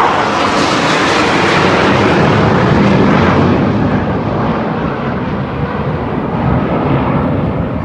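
Formation of jet aircraft flying past, a loud, even roar. The hiss at the top of the roar dulls and the sound eases off a little as the jets move away.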